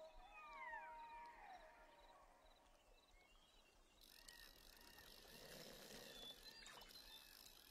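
Faint outdoor ambience with birds calling. Several gliding whistled calls come first. About four seconds in, a soft background hiss rises, with short calls repeating about twice a second.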